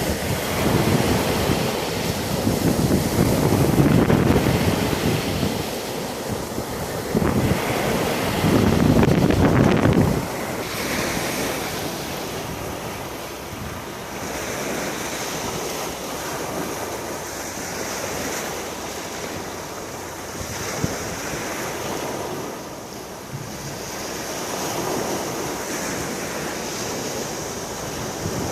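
Sea waves washing onto the shore, with wind buffeting the microphone in heavy gusts for the first ten seconds or so; the gusts drop off suddenly, leaving a steadier, softer wash of surf.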